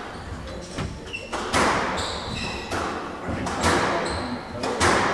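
Squash rally: the ball cracks off rackets and the court walls about once a second, each hit ringing in the court, with short squeaks of shoes on the wooden floor between the hits.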